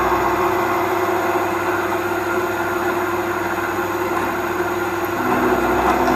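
Milling machine spindle running at about 930 RPM while its cutter is fed by hand through the workpiece, cutting one tooth of a torque wrench nut. A steady machining noise with a steady hum that gets a little louder near the end.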